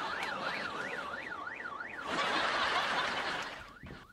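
Car alarm sounding: a siren tone sweeping rapidly up and down, about three times a second. About halfway through it gives way to a harsh, noisy blare that fades out near the end.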